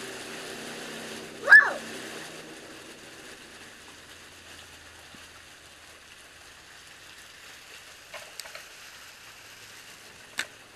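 A small pond waterfall spilling steadily into a stone spillway pipe. About a second and a half in there is one short, loud high cry that rises and falls in pitch, and a few faint clicks and one sharp click come near the end.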